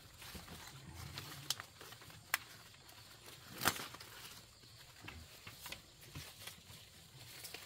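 Leaves being picked by hand from a leafy vine: soft rustling of foliage and a few sharp snaps, the loudest about three and a half seconds in.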